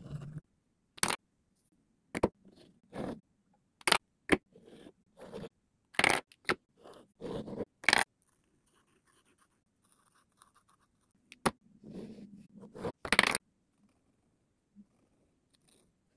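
Plastic Posca paint markers clicking and scraping against each other as they are handled: about a dozen short, irregular knocks spread over most of the stretch, with a few longer scrapes.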